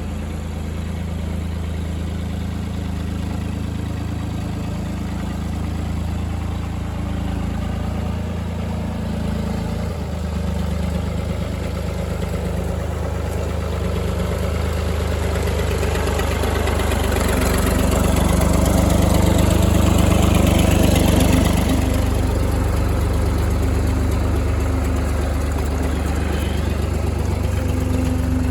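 Farm tractor engine running steadily in a low gear while carrying a round hay bale through deep mud. It grows louder to a peak about two-thirds of the way through, then eases slightly.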